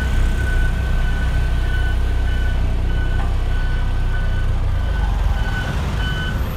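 Diesel engines of a convoy of XCMG single-drum road rollers driving past: a steady low rumble, with a thin high whine that comes and goes over it.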